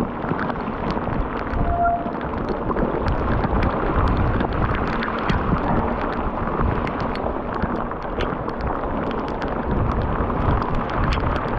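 Heavy tropical rain and wind buffeting the microphone on a mountain bike ride: a dense steady rush with rapid sharp taps of raindrops hitting the camera.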